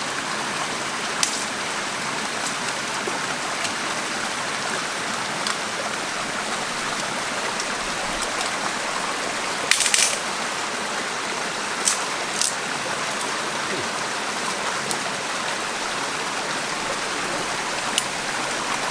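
Small mountain stream running fast and steady, swollen with runoff after heavy rain. A few short sharp snaps of footsteps through brush cut in, the loudest about ten seconds in.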